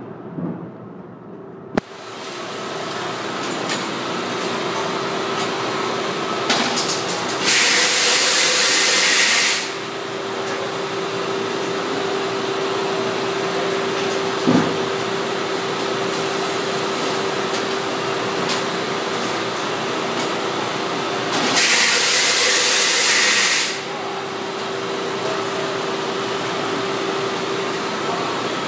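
Automated hot air solder leveling (HASL) machine running with a steady hum. Twice, about fourteen seconds apart, a loud hiss lasts about two seconds: the hot-air knives blowing excess molten solder off a circuit board. A single knock comes about halfway through.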